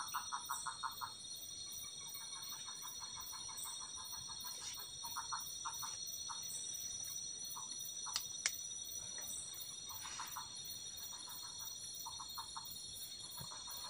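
Night forest ambience: a steady high-pitched chorus of insects, with repeated short bursts of rapid pulsed animal calls, and two sharp clicks about eight seconds in.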